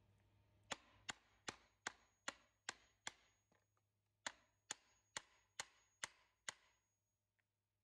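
Hammer tapping a small U-shaped nail into a wooden stool frame while needle-nose pliers hold the nail, driving it down over the rod that holds the seat fabric in its groove. The blows come in two quick runs, seven and then six, about two and a half a second, with a short pause between.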